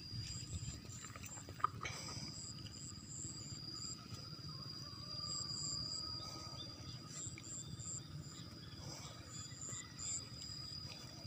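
Insects singing in the field: one steady high-pitched drone with a pulsing, higher chirp that comes and goes over it. There is a low rumble underneath and a single short click about one and a half seconds in.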